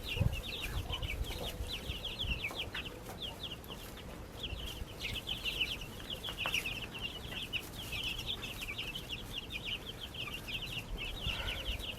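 Many baby chicks peeping at once, a constant overlapping stream of short, high, falling chirps that thins briefly about four seconds in. A soft low thump comes just after the start.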